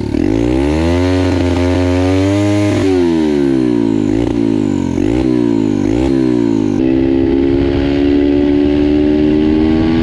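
Turbocharged Loncin pitbike engine revved up and back down, then blipped several times in quick succession. After an abrupt change about two-thirds of the way in, it pulls with a steady, slowly rising note as the bike rides off. The rider calls its behaviour very strange.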